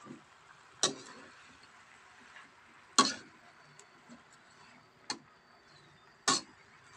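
Metal slotted spatula clanking against a wok while stir-frying water spinach, four sharp knocks about two seconds apart.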